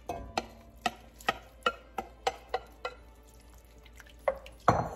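Wooden spoon tapping and scraping roasted vegetables out of a glass bowl into a pot of soup: a quick run of sharp taps, about three a second, then two louder knocks near the end.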